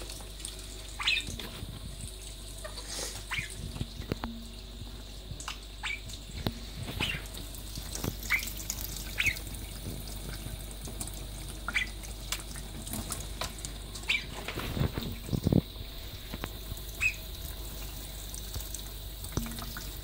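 Kitchen tap running in a thin, steady stream while English budgerigars bathing under it give short, sharp chirps every second or two.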